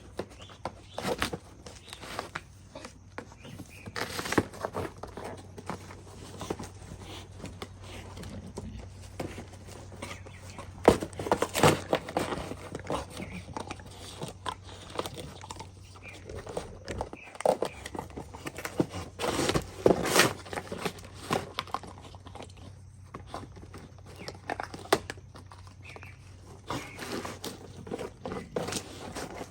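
A dog chewing and tearing at its box and toys: irregular crunching and crinkling, with louder bouts of biting now and then.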